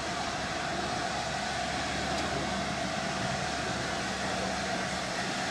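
LNER A4 steam locomotive moving slowly tender-first along the track, a steady rumble and hiss with no separate beats.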